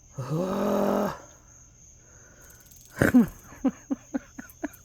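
Dog vocalizing: a short whining grumble, then a falling whine and a run of about six quick whimpers near the end, over a steady high drone of insects.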